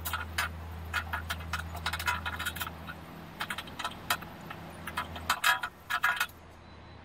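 Pliers clicking and scraping on the jagged edge of a hole cut in thin sheet metal as the cut tabs are bent back: a quick, irregular run of sharp metallic clicks that stops about six seconds in.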